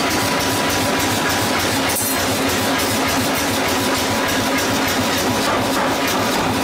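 Steady mechanical drone and hiss of forge-shop heating machinery, with a faint low hum and no distinct blows.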